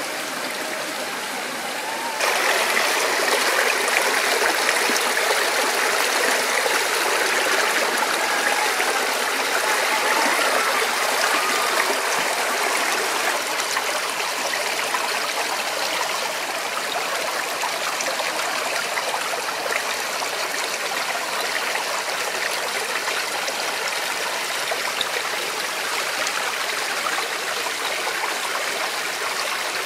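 A rocky mountain stream flowing and splashing over rock slabs, a steady rushing of water that gets louder about two seconds in.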